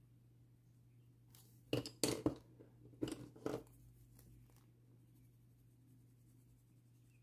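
Wooden coloured pencils clicking and clattering against each other and the tabletop, about half a dozen sharp knocks in the middle, as one pencil is put down and another picked up. A faint low hum runs underneath.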